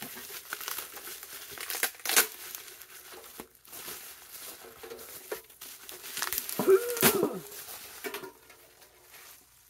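Packing material crinkling, crumpling and tearing as a wrapped item is unwrapped by hand, with sharp rustles and clicks throughout. A short voiced sound comes about seven seconds in, at the loudest point.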